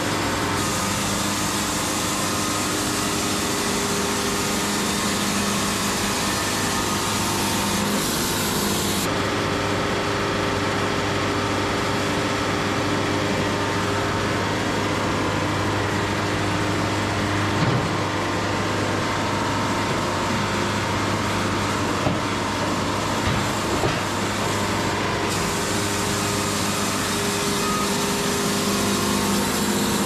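Wood-Mizer LT70 band sawmill running steadily on its diesel engine as the band blade saws a poplar cant, with a few brief knocks a little past the middle.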